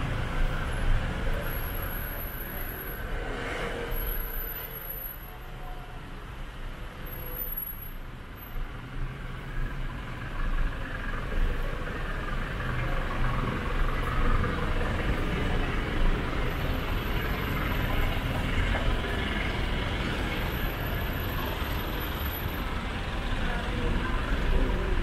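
Street ambience with motor traffic running past and a steady low rumble.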